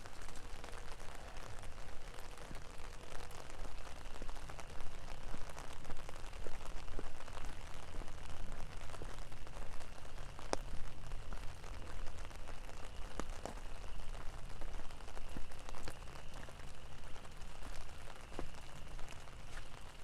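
Steady rain falling, with scattered sharp drops tapping close by.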